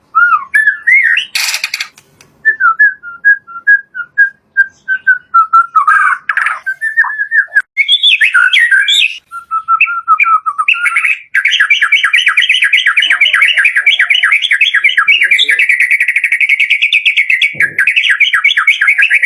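White-rumped shama singing: a varied string of whistled phrases, including a run of short even notes. About eleven seconds in it goes into a long, fast, unbroken series of repeated notes.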